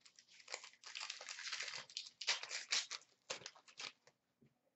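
Plastic wrapper of a trading-card pack crinkling and tearing as it is opened by hand: a continuous rustle for about a second, then a string of short crinkles.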